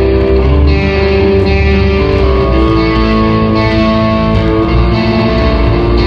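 Live rock music led by electric guitar, playing held notes that change every second or so over a steady band backing; loud.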